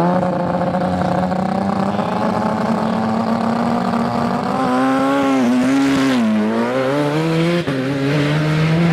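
Racing snowmobile engine running at high revs on a straightline speed run. Its pitch holds steady, wavers and dips about five to six seconds in, then climbs again toward the end.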